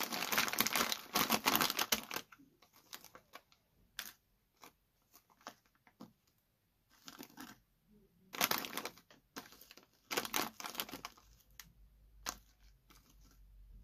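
Plastic cereal bag crinkling under hands as chocolate cereal pieces are moved around on it: a dense crinkle for the first two seconds, then short scattered rustles.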